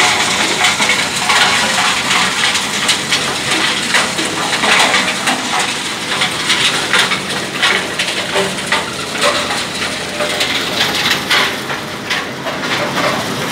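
Belt-driven crusher breaking gypsum rock: a steady, dense crunching and clattering of stone mixed with machine rattle.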